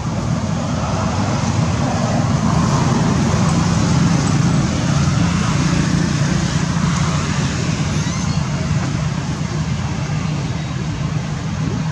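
Steady low rumble with an even hiss over it, a little louder in the middle, like a motor or road traffic running.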